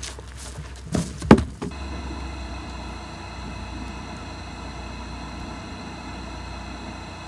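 Two heavy thuds about a second in, firewood logs tossed down onto a pile. Then a steady, even mechanical hum with faint high whining tones, like a small engine idling.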